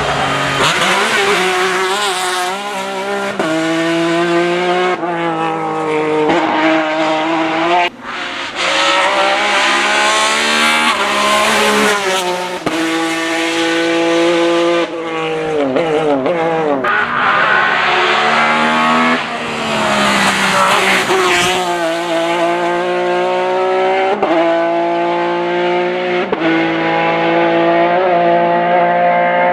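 Ford Mondeo V6 STW touring car's naturally aspirated 2.0-litre V6 at full racing effort, revving high and climbing through the gears, with a quick dip in pitch at each shift. About halfway through the revs fall away through downshifts before it pulls hard up through the gears again.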